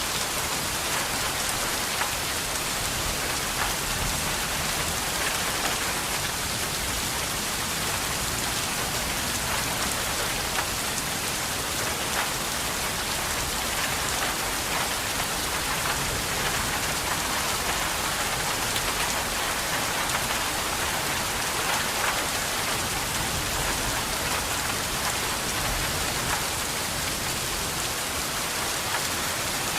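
Steady rain falling on a surface, an even hiss with many small drop ticks throughout.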